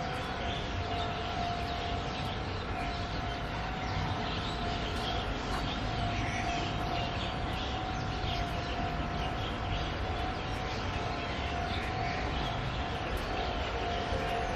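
Diesel Tze-Chiang express train approaching from a distance: a low rumble under a steady, siren-like tone, with light chirps over it.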